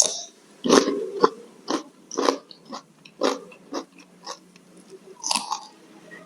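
Close-miked chewing of crunchy food, with sharp crunches about twice a second.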